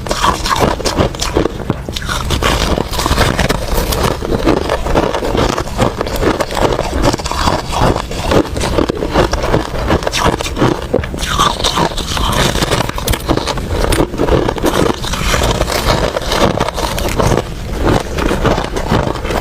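Close-miked crunching and chewing of hard ice, a dense run of sharp cracks and crackles.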